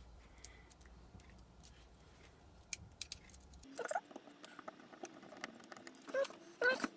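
Small metal robot-arm parts, bolts and a screwdriver being handled: scattered light clicks and taps. From about four seconds in come a few short squeaky sounds, the strongest near the end.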